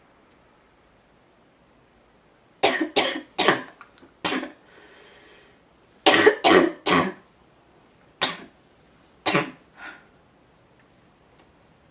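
A sick woman coughing in fits: four harsh coughs starting about two and a half seconds in, a drawn breath, then three more in quick succession, followed by two single coughs and a fainter last one.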